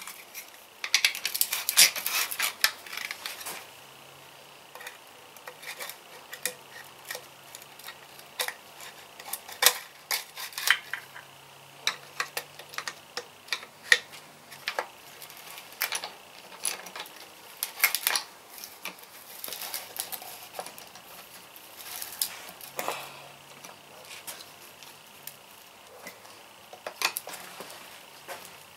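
Metal engine parts and hand tools clinking, clicking and scraping on a workbench in irregular bursts during piston and ring work on a cast iron small engine.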